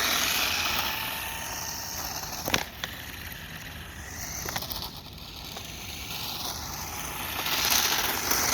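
Battery-powered RC toy car running, its small electric motor whining up and down in pitch as it speeds up and slows, with its tyres rolling and hissing over the ground. A sharp knock comes about two and a half seconds in.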